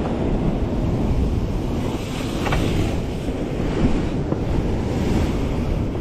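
Sea waves washing against a rocky shore, with wind buffeting the microphone. One wash swells louder and brighter about two seconds in.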